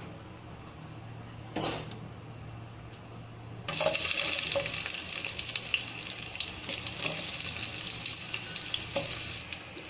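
Sliced onions frying in hot sesame oil in a steel pot. It is quiet at first with one soft knock, then a loud steady sizzle with fine crackling starts suddenly about four seconds in as the onions hit the oil.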